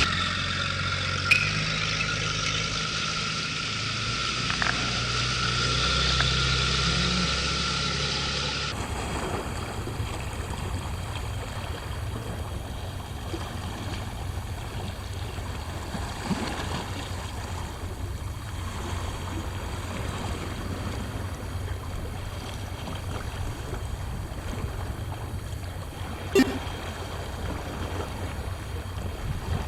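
Steady wind and sea noise on an open microphone, with one sharp knock near the end. It is preceded by about nine seconds of a different low, steady drone that cuts off abruptly.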